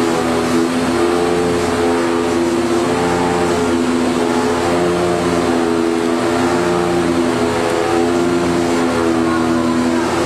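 Corrugated cardboard production line machinery running: a steady mechanical hum with several held tones, and a lower throb that swells roughly every two seconds.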